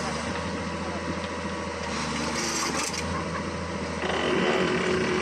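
Hydraulic excavator's diesel engine running steadily, growing louder about four seconds in.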